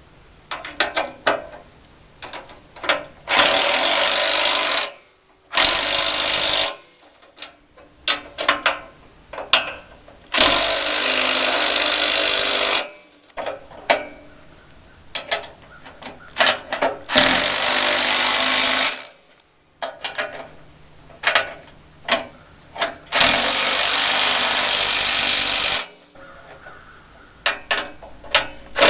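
Power impact driver running in five spells of one to three seconds each, driving bolts as the sawmill's bed sections are bolted together, with sharp metal clicks and knocks of parts and hardware being handled in between.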